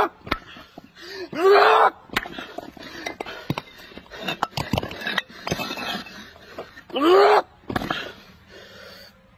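A man's drawn-out strained cries, each rising then falling in pitch, one about a second and a half in and another near seven seconds. Between them come scattered sharp knocks as bricks are struck by hand and break.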